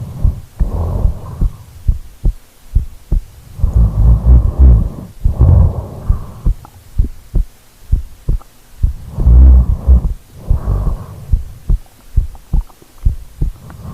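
A person snoring: three slow breaths, each a rough sound in two parts, repeating about every four to five seconds, with short clicks between them.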